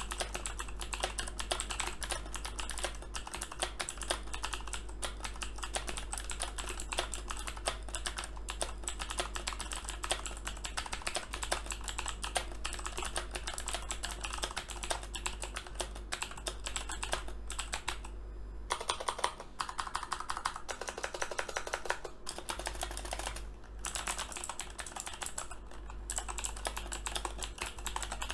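Fast, continuous typing on a Razer BlackWidow V3 TKL mechanical keyboard with clicky Razer Green switches and thick PBT doubleshot keycaps: a dense stream of key clicks, with a few brief pauses in the second half.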